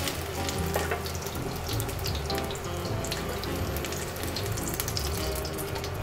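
Hot oil sizzling and crackling in a frying pan around zucchini and carrot pancakes.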